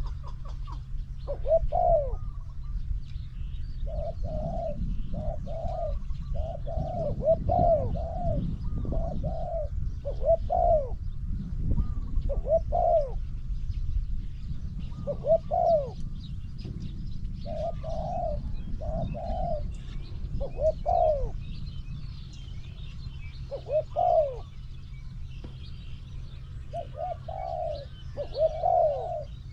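Spotted doves cooing again and again: short, arched phrases of several notes, some coming in quick runs and others a few seconds apart. Underneath is a low rumble, heavier in the first half, and a steady low hum. Faint high chirping of other birds runs in the background.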